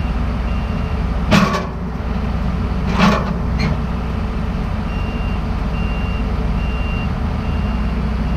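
A vehicle engine running steadily, with two short bursts of hiss about one and three seconds in. From about five seconds in, a reversing alarm beeps evenly, roughly once every seven-tenths of a second.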